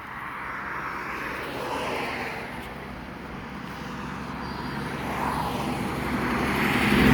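Interstate traffic passing: tyre and engine noise swells as a vehicle goes by about two seconds in, then grows louder again as a truck approaches near the end.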